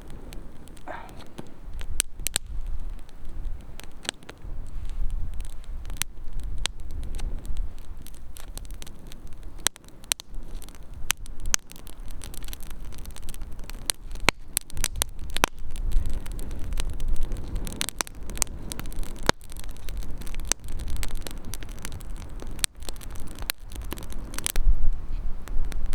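Wood campfire crackling, with frequent irregular sharp pops and snaps over a low rumble.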